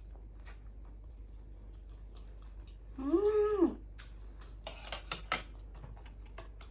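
Close-up eating sounds of a person chewing a momo dumpling: soft wet mouth clicks, with a single hummed 'mmm' of enjoyment about three seconds in and a few sharper clicks after it.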